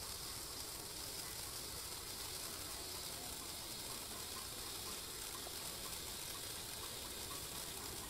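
Colorful pistil waterfall firework burning, giving a steady hiss as the sparks pour down.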